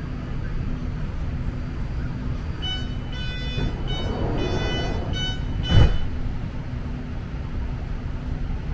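BART train rumbling steadily at speed. Midway a high whine sets in, broken by short gaps, and it ends with one sharp knock, the loudest sound here.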